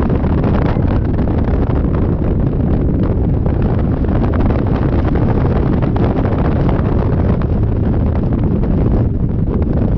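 Wind buffeting the microphone of a camera riding on a moving scooter: a loud, steady rumble strongest in the lows.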